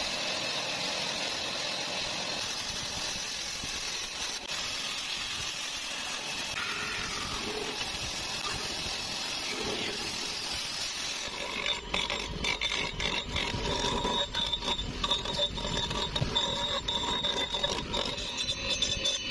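Woodworking machinery: a steady machine hum as a block of wood is cut on a bandsaw. About two-thirds of the way through it turns into rougher, uneven grinding and scraping as the wooden carving is pressed against a spinning disc on a motor spindle.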